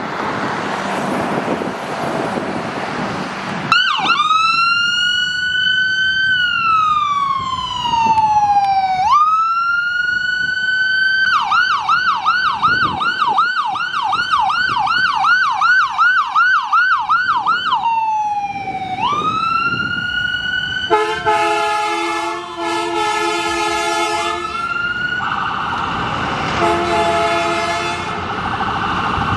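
Ambulance electronic siren starting a few seconds in. It wails slowly up and down twice, switches to a rapid yelp of about three rises a second for several seconds, then wails again. In the last several seconds the Buell air horns sound in two long stretches over the siren.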